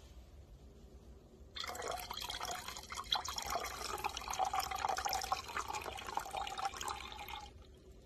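Liquid poured in a stream into a plastic beaker of green acid solution, splashing and foaming. The pour starts about one and a half seconds in and stops about half a second before the end.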